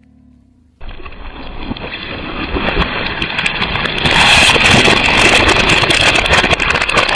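Dense crackling and crunching of things being crushed under a car tyre. It starts abruptly about a second in and grows louder toward the end.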